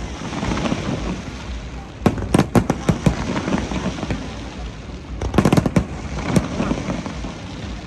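Fireworks going off in two clusters of rapid, sharp crackling bangs, one about two seconds in and another about five and a half seconds in, over a steady background of crowd noise.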